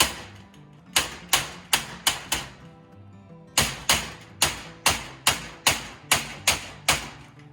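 A hammer striking sheet metal in a steady run of ringing blows, about two to three a second, with a short pause about three seconds in. Guitar background music plays underneath.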